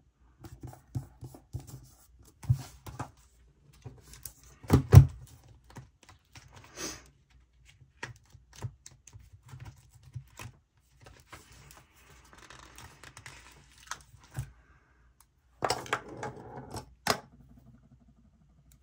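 Handling of stickers and planner pages on a desk: scattered light taps, clicks and paper rustles, with one louder knock about five seconds in and a longer rustle near the end as a number sticker is picked up with metal tweezers.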